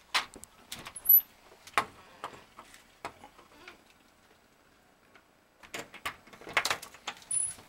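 Irregular footsteps and knocks, then a cluster of clatter with brief high squeaks near the end as a door is opened.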